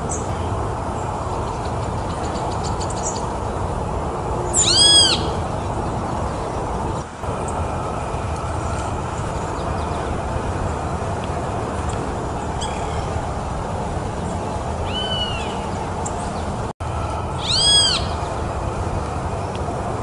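Mockingbird giving three short, clear calls, each note arching up and then down in pitch: one about a quarter of the way in, a fainter one about three-quarters in, and a loud one near the end. A steady background rumble runs underneath.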